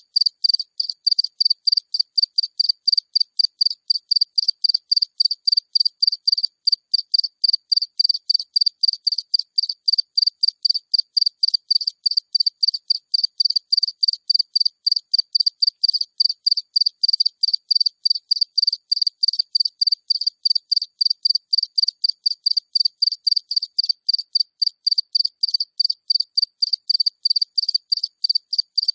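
A single cricket chirping close up, a high, even chirp repeated steadily about three times a second.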